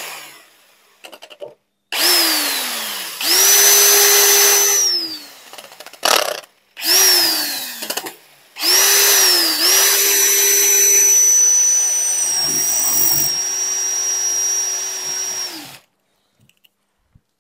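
Cordless drill in plain drilling mode (hammer off) with a masonry bit, boring into a glazed ceramic wall tile. Several short trigger pulls, each winding down with a falling whine, then one steady run of about seven seconds that stops abruptly near the end.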